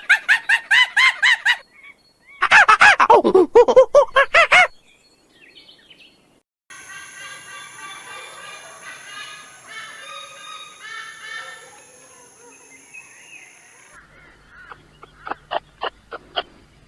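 Birds calling in quick repeated runs, loudest about two to five seconds in. This gives way to a softer stretch of calls, then a fast series of sharp ticks near the end.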